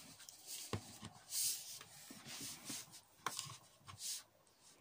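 Hands handling a plastic action figure and its effect part: faint rubbing and scraping of plastic, with a light click about three-quarters of a second in and another about three seconds in.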